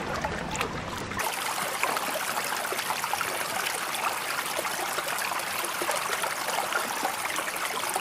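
Water trickling briefly, then about a second in the sound cuts to a steady underwater crackle: dense fine clicks and hiss with little low end.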